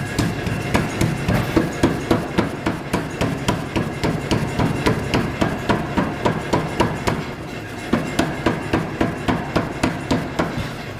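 Mechanical trip hammer striking hot metal being forged, in a steady rhythm of about three blows a second.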